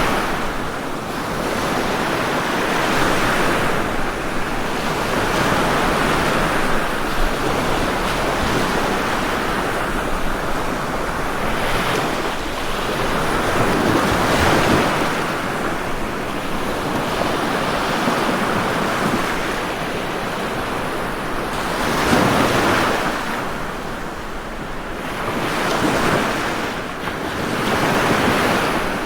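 Ocean waves breaking on a shore, each surge of surf swelling and washing back every few seconds, with stronger breakers around the middle and near the end.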